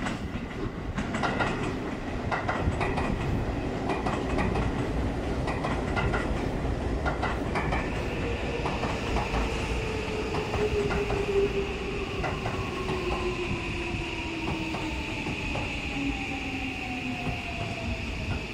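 Seibu 6000 series electric train with a SiC-VVVF inverter running into the station, its wheels clicking over rail joints and points. From about eight seconds in, the traction motors give a whine that falls slowly in pitch over a steady high tone as the train brakes.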